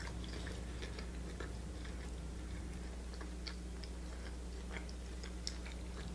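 A person chewing a mouthful of creamy pasta with the mouth closed, with many small wet mouth clicks scattered through, over a steady low hum.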